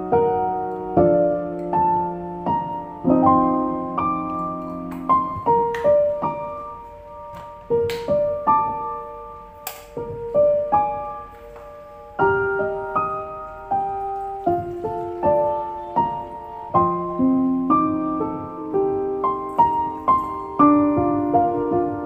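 Background piano music: a slow melody of single notes and chords.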